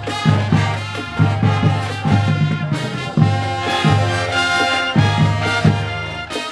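High school marching band playing a brass-led tune: trumpets and trombones over a driving low brass bass line, with drum hits keeping the beat.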